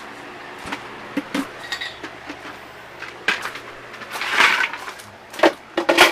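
Ice cubes clinking and clattering in a container: a few sharp clinks, then a louder rattling clatter about four seconds in and two more knocks near the end, over a faint low steady hum.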